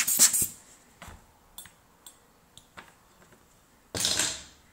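Quick scratchy strokes of a plastic tool working at the adhesive gasket on a phone's back cover, stopping about half a second in. A few faint ticks follow, then near the end a brief scuffing rush as hands press the back cover into place.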